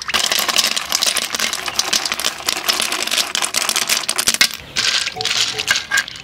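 Many small pond-snail shells clicking and rattling against each other and the aluminium wok in water, a dense rapid clatter that breaks off briefly about four and a half seconds in and then starts again.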